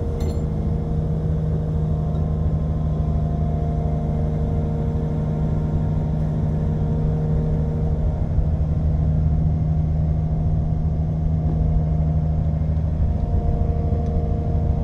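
Excavator's diesel engine idling at a steady speed, a constant low hum.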